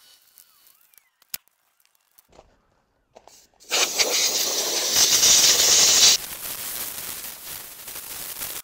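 Water from a garden hose splashing onto concrete and gravel, starting abruptly about four seconds in, loud for a couple of seconds and then running on more quietly.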